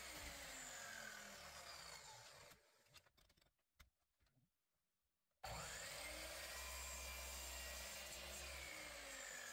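Faint, steady sawing of small sapele wood pieces, broken by about three seconds of dead silence in the middle.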